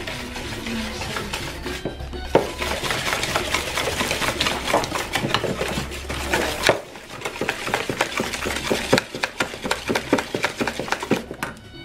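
Wire whisk beating eggs and flour into crepe batter in a plastic bowl: rapid, even clicking and scraping strokes against the bowl, starting about two seconds in and briefly easing off partway through.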